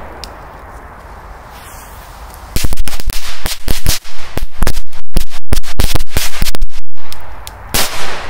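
Firecrackers going off: a rapid, uneven run of loud, sharp bangs lasting about four seconds, beginning a little over two seconds in, then a single further bang about a second later.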